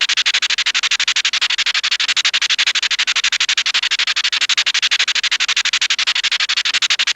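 Hanna-Barbera cartoon skid sound effect: a loud, steady, scratchy rasp pulsing rapidly, about ten times a second, with no change in pitch.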